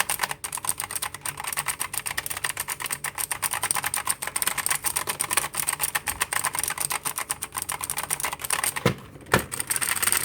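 Ziyoulang K2 Pro 87-key mechanical keyboard with blue switches being typed on rapidly: a dense, continuous run of sharp clicky keystrokes, with a brief break about nine seconds in.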